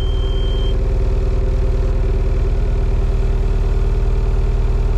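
Diesel engine idling with a fast, even low pulse just after a cold start; the glow-plug light was waited out before cranking. A high steady tone stops within the first second.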